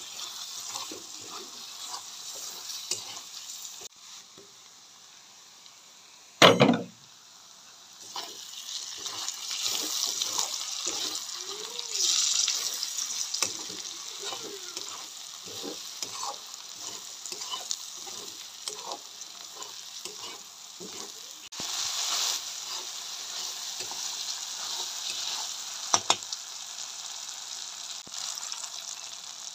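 Sliced onions and spices sizzling in oil in a metal kadai while a spatula stirs and scrapes against the pan. There is one loud knock about six seconds in and a sharp click near the end.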